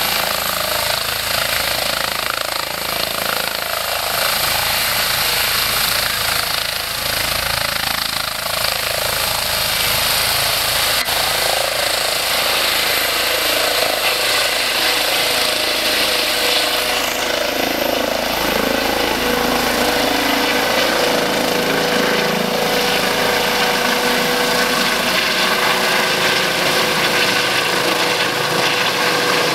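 Eurocopter EC135 helicopter lifting off and climbing away overhead: the loud, steady chop of its main rotor over the running of its twin turbine engines, with a steady tone coming in about halfway through.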